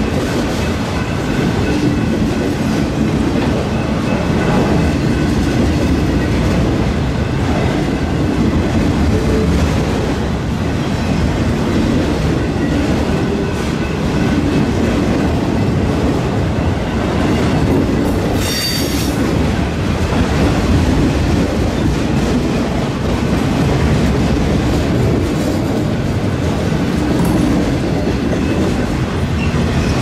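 Steel wheels of autorack freight cars rumbling and clacking steadily over the rails as the train rolls past. A brief high-pitched wheel squeal rings out about two-thirds of the way through.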